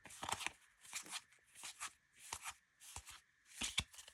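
Baseball trading cards being flicked through and laid down one at a time: an irregular run of light, crisp card slaps and rustles, a few a second.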